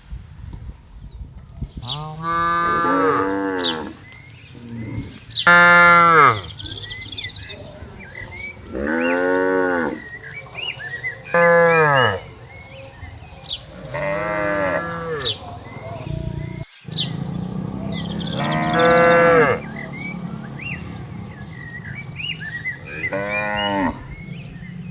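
Cattle mooing repeatedly: about seven long moos a few seconds apart, each rising and then falling in pitch.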